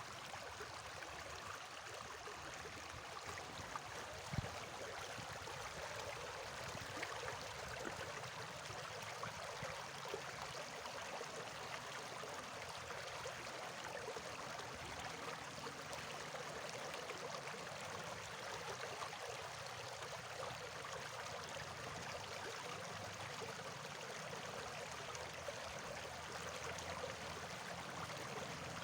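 Stream water flowing steadily with a constant rushing babble, and a single small knock about four seconds in.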